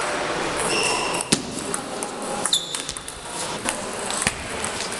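Table tennis rally: the celluloid/plastic ball clicking sharply off the rubber bats and the tabletop, a knock every half second or so, in a reverberant hall with fainter clicks from other tables. A couple of short high squeaks sound in between.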